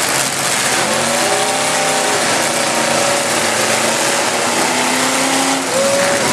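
Demolition derby cars' engines revving hard at full throttle, their pitch rising and falling over a steady loud din.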